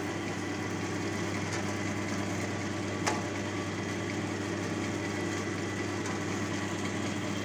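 Electric dough roller (sheeter) running with a steady motor hum while a ball of pizza dough is fed through its rollers. A single short click comes about three seconds in.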